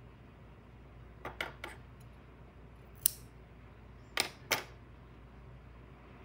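Scissors cutting yarn and being put down on a wooden tabletop: a few light clicks about a second in, one sharp click about three seconds in, then two quick clacks a moment later.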